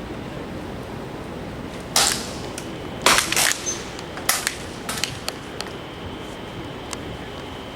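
Pellet air rifles firing at a benchrest match: a string of sharp cracks at uneven intervals. The loudest come about two and three seconds in, and several fainter ones follow.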